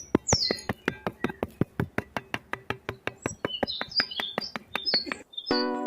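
Birds chirping over a fast, even clicking, about five or six clicks a second. Music starts near the end.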